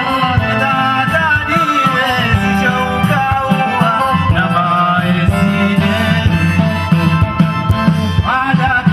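Music plays without a break: a melody in long, gliding notes over steady low drumming.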